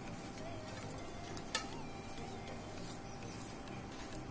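Faint scraping of a spoon mixing khoya and powdered sugar on a ceramic plate, with a single light click of spoon on plate about a second and a half in, over a steady low background hum.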